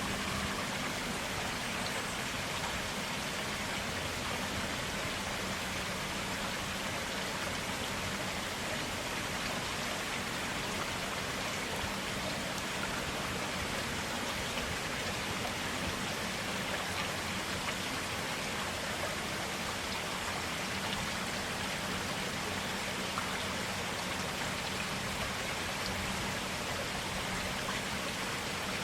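A forest stream running steadily over stones, a continuous even rush of water.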